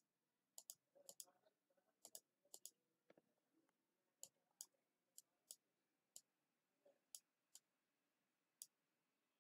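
Computer mouse clicking: about fifteen faint, sharp clicks, several in quick pairs in the first few seconds and then single clicks spaced out.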